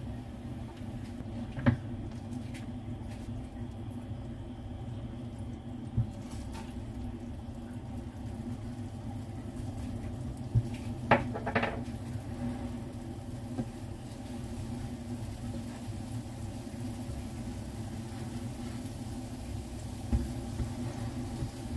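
Plastic spatula knocking and scraping in a nonstick frying pan as diced food is added and stirred in melted butter: a few sharp knocks, two close together about halfway through, over a steady low hum.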